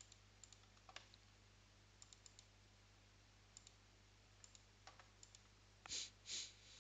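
Faint computer mouse clicks, single and in quick pairs, over a low steady hum; near the end come two short, louder hisses.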